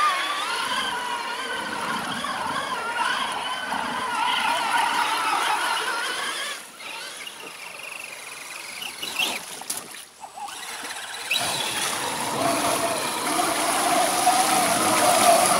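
Electric motors and gearing of RC scale crawler trucks whining, rising and falling in pitch with the throttle, as they churn through a muddy water hole with water splashing. The whine drops away in the middle, then a lower, steadier whine returns with more splashing as the second truck ploughs through the mud near the end.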